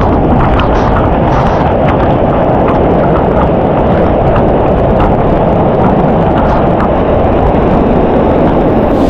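Waterfall water rushing and churning close to the microphone, a loud, steady rush of noise with faint splashing ticks.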